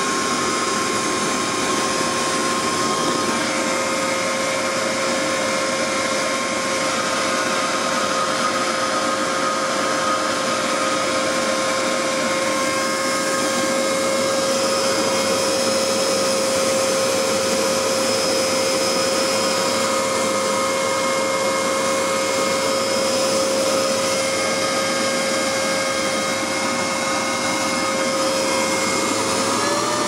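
Leaf blower running steadily with a high motor whine, blowing air through a diesel heater's exhaust heat exchanger; right at the end its pitch dips and then climbs.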